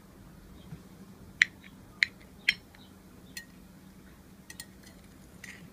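A utensil clinking against a small bowl while cutting into a cookie: about seven short, sharp clinks, the three loudest between about one and a half and two and a half seconds in.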